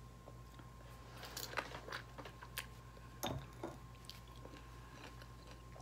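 A person biting into a lemon half and chewing it, a scatter of faint short mouth sounds, mostly between about one and four seconds in.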